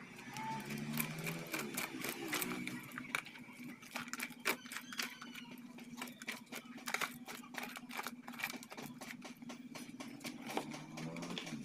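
Hands mixing gritty bonsai potting soil with small stones in a plastic basin: a dense run of crunching, clicking scrapes as grit and pebbles rub against each other and the tub.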